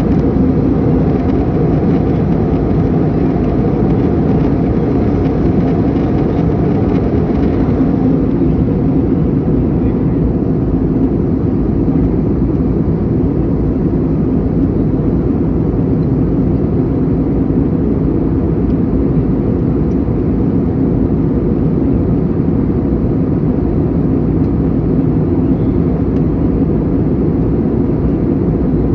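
Steady cabin noise of an airliner in flight, heard from inside the cabin: a constant low rush of engines and airflow with a faint hum in it.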